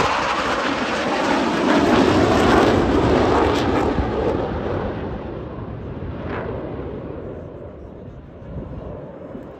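An airplane flying past: a loud roar that drops in pitch over the first few seconds and then fades steadily as it moves away.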